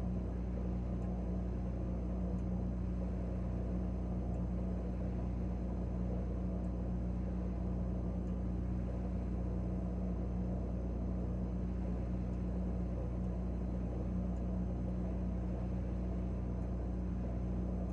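Refrigerator compressor running with a steady low hum, heard from inside the closed fridge.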